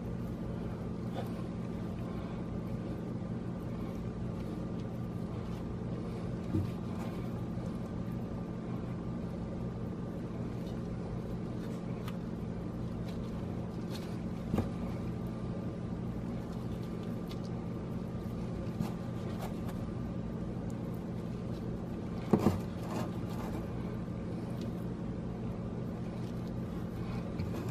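Steady low mechanical hum with a few faint clicks and taps scattered through it, from beef being laid onto sandwich buns.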